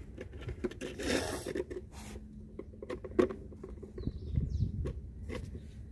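A plastic bottle and its screw cap being handled and fitted by hand: scattered small clicks, rustles and plastic crinkles, with a sharper click about three seconds in.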